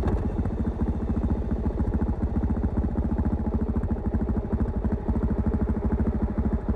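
Suzuki DR-Z 400 Supermoto's single-cylinder four-stroke engine, breathing through a Keihin FCR 39 carburettor and a LeoVince V3 silencer with the dB-killer fitted, running steadily at low revs. Each firing pulse is heard separately in an even beat, with no revving.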